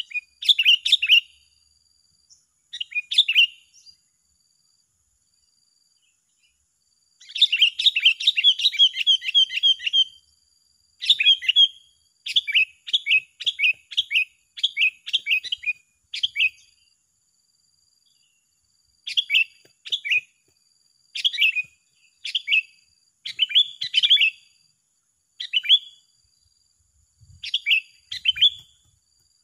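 Sooty-headed bulbuls singing back and forth in a duel: short bubbly chirped phrases, with a fast run of notes lasting about three seconds some seven seconds in, then phrases about once a second.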